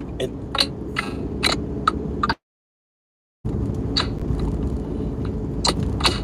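Steady car-cabin rumble from engine and road, with scattered light clicks and ticks. The sound cuts out to dead silence for about a second partway through, then resumes.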